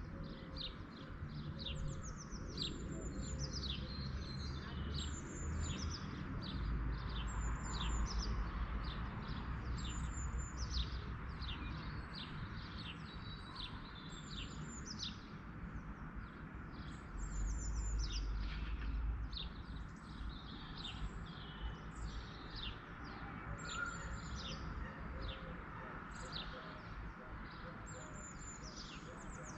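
Songbirds chirping and twittering, a steady stream of short, high, downward-sweeping notes, over a low rumble that swells twice, about 7 and 17 seconds in.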